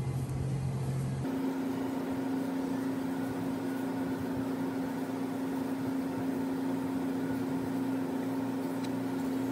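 Steady low mechanical hum, a machine running in the background, with no knife or cutting sounds standing out; its tone steps up in pitch about a second in.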